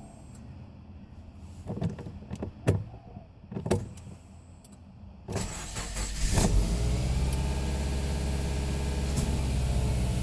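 A few sharp clicks, then a 2009 Subaru Impreza's flat-four engine cranks and starts about five seconds in and settles into a steady idle. The idle is the rough one the owner has not cured with a new catalytic converter, coil packs, plugs and injectors.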